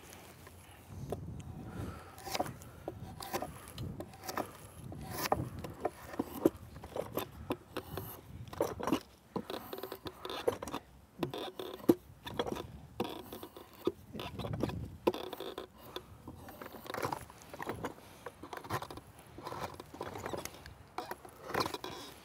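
A hand blade shaving a wooden mallet handle clamped in a draw horse: irregular scraping strokes, about one or two a second, mixed with sharp wooden knocks, one louder knock near the middle.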